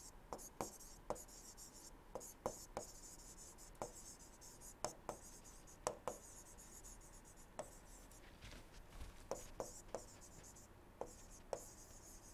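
Digital pen writing on a tablet: a string of faint, irregular taps and short scratches as words are handwritten, over a steady faint hiss.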